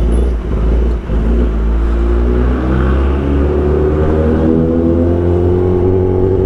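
Kawasaki ZX-10R inline-four engine pulling under way, its pitch rising slowly as it accelerates through a gear. Wind rumbles steadily on the rider's microphone underneath.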